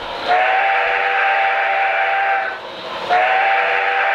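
Train whistle sounding long blasts of several notes at once, with a breathy hiss. The second blast starts about three seconds in.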